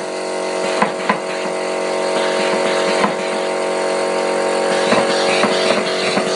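A steady mechanical hum made of several tones, with occasional sharp clicks or knocks, two close together about a second in and another about three seconds in.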